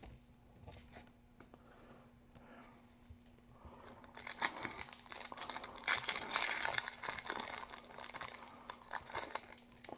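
Yu-Gi-Oh booster pack's foil wrapper crinkling and tearing as it is opened, starting about four seconds in after a few faint handling clicks.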